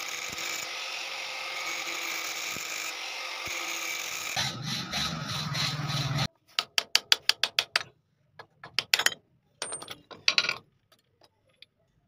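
Handheld angle grinder with a cutting disc running steadily as it cuts through a seized steel bicycle handlebar stem, its sound changing about four seconds in. Then a hacksaw on the steel tube at the head of the bicycle frame, a fast run of strokes followed by a few scattered ones.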